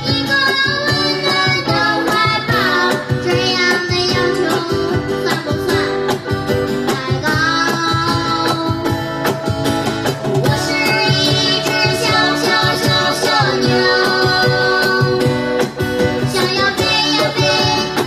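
A child singing a pop song live with acoustic guitar strumming and a steady cajon beat behind him.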